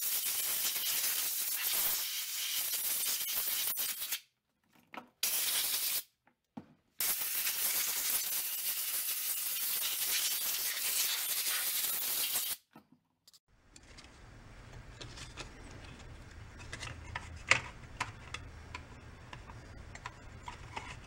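Compressed-air blow gun blasting dust and debris out of a chainsaw's engine housing and flywheel area, in three hissing blasts: about four seconds, a short one, then about five and a half seconds. After the blasts, light clicks and taps of small parts being handled.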